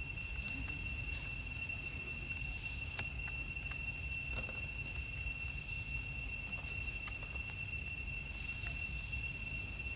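Forest ambience: a steady, unbroken high-pitched insect drone over a low rumble, with a few faint ticks.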